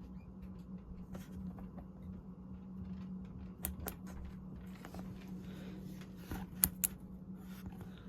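A 1987 Casablanca Delta 2 ceiling fan running with a steady motor hum. Two pairs of sharp clicks come, one a little past halfway and one nearer the end.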